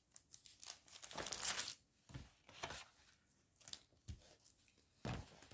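Clear plastic bag crinkling and rustling softly as it is opened and handled by hand: a string of short crackles, with a longer rustle between about one and two seconds in.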